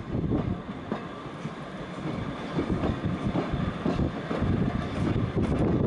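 Heritage steam railway passenger carriage running along the line, its wheels on the rails heard from the carriage window. The running noise drops quieter about half a second in and grows louder again near the end.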